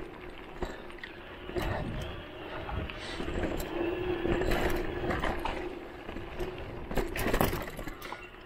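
Electric mountain bike's motor whining steadily under pedal assist, while the bike rattles and knocks over a bumpy dirt trail. The knocks come thickest about seven seconds in.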